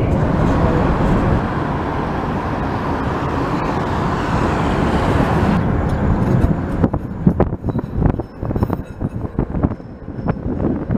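Heritage tram running along its rails, a steady dense rumble. About six seconds in the sound changes to a series of sharp, irregular clicks and knocks over a lower rumble.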